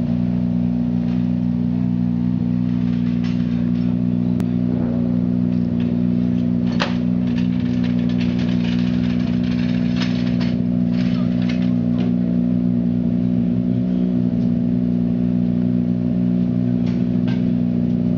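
Ford Fiesta WRC rally car's turbocharged four-cylinder engine idling steadily, with no revving.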